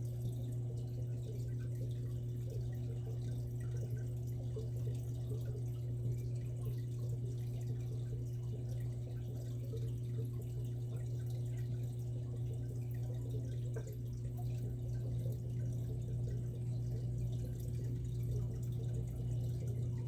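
Aquarium water trickling and dripping, with small bubbly ticks over a steady low hum, typical of an aquarium filter running.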